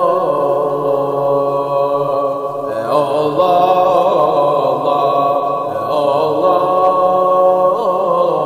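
A voice chanting an ilahi, a devotional hymn, in long held notes with sliding ornaments, over a steady sustained tone.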